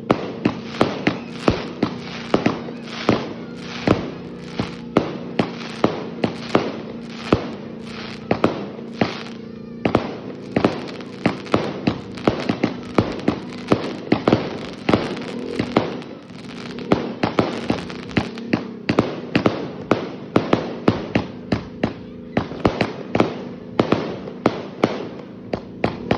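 Multi-shot fireworks cake firing a rapid, unbroken run of sharp reports, about two to three a second.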